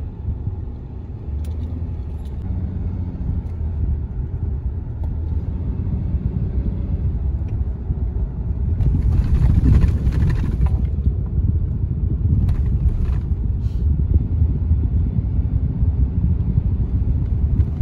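Car cabin noise while driving: a steady low rumble of engine and tyres on the road, with a louder stretch of hiss about nine seconds in that lasts a couple of seconds.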